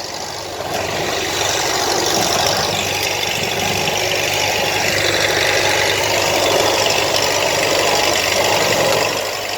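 An engine running steadily with a dense rushing noise over it, growing louder about a second in and then holding level.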